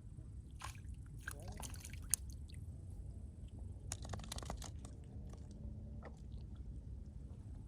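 Close crackling and rustling with scattered clicks in two spells, the first ending in one sharp click about two seconds in, over a steady low rumble.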